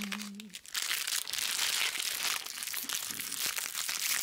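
Crinkling and rustling of trading-card pack wrappers being handled and opened, full of small crackles. A sung "ding" tails off in the first half second.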